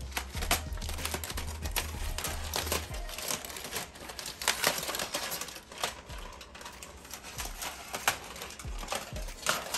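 Aluminium foil being peeled off a baking pan and crumpled by hand: continuous crinkling and rustling with sharp crackles.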